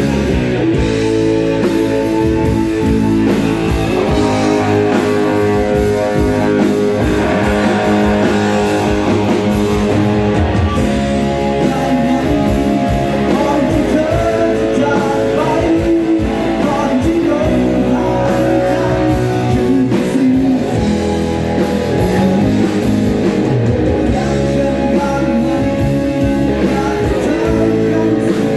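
Rock band playing a Thai rock song: electric guitar, bass guitar and drum kit, with singing.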